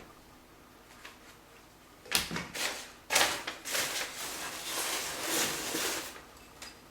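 Handling noise from box contents being moved about: a short knock about two seconds in, then about three seconds of rustling that stops near the end.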